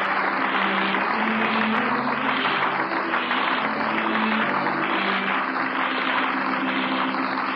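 Studio audience applauding over music playing held notes, as on an old radio broadcast, with a regular swishing wobble through the applause.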